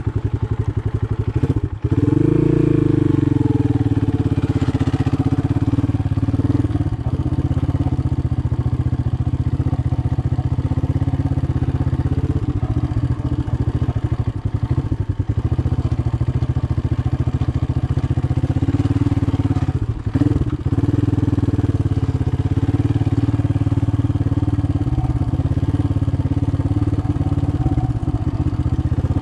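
Motoland Legend 300 motorcycle engine pulling steadily at low revs on a rough dirt trail. The throttle opens and the engine swells about two seconds in, and it briefly drops off about twenty seconds in.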